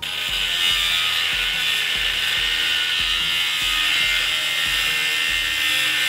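Angle grinder cutting into the steel rear brake dust shield of a Lexus IS300, a steady high grinding that cuts in abruptly. The material being ground off is where the shield has been rubbing on the rotor and making the grinding brake noise.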